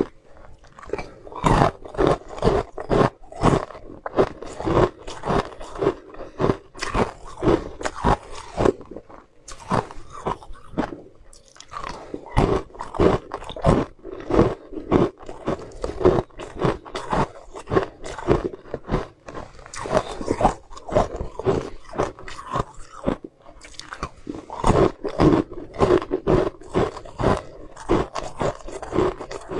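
Close-up crunching and chewing of small frozen sweet ice treats: a fast run of sharp crunches, broken by a couple of short pauses.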